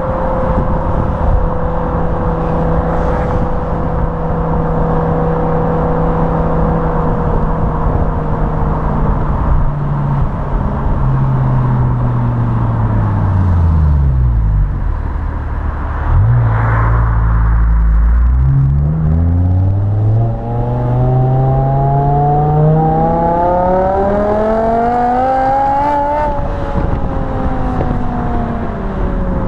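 BMW M5 E61 Touring's 5.0-litre V10 on its standard rear silencers, under way: a steady cruising note, then the revs fall as the car slows, then the engine pulls through steadily rising revs from about two-thirds of the way in, peaking near the end before dropping as the throttle is lifted.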